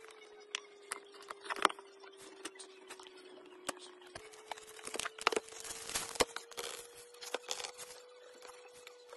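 Scissors slitting the seal along the edge of a cardboard product box, with close-up taps and clicks of fingers and blades on the box. There is a denser scratchy cutting stretch about five to seven seconds in.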